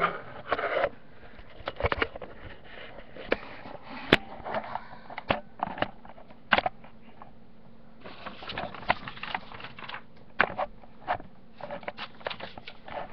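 Scattered light clicks, taps and rustles from handling drawing supplies and paper at a desk, with one sharp click about four seconds in and a busier run of clicks from about eight seconds on.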